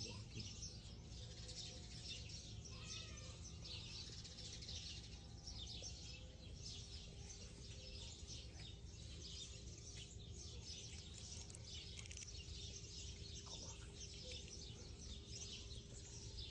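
Many small birds chirping continuously and faintly, over a low steady hum.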